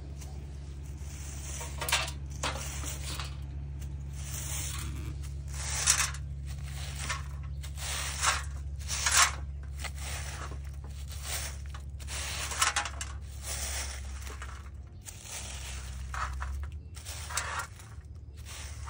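A broom sweeping fallen flower petals and grit across a gravel-surfaced path into a dustpan: a series of short brushing strokes, roughly one a second, over a steady low hum.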